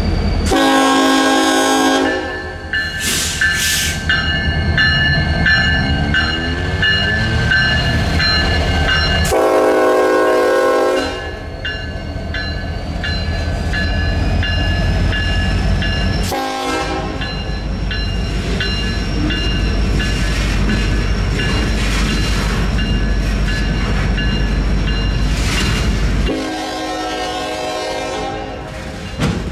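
Norfolk Southern SD70IAC diesel locomotive sounding its air horn in the grade-crossing pattern of long, long, short, long, the last blast held about three seconds, over the steady low rumble of the locomotive running.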